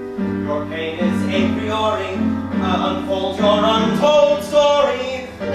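A voice singing a musical theatre number in held, pitched phrases over instrumental accompaniment with a steady bass line.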